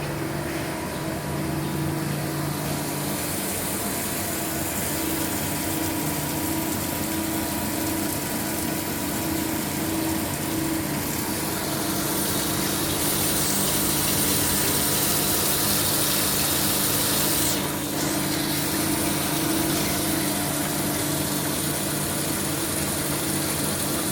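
Okuma MX-45VAE CNC machining center running, with a steady hum of several tones from its motors and pumps. A rushing hiss grows louder about halfway through, briefly breaks off near the three-quarter mark, then returns.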